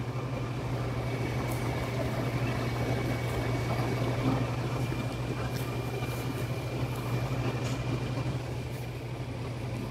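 Steady low machine hum with a thin, faint high whine over it, unchanging throughout.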